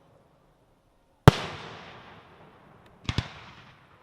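Aerial firework shells bursting: one sharp bang about a second in, then two bangs in quick succession near the end, each followed by a long fading echo.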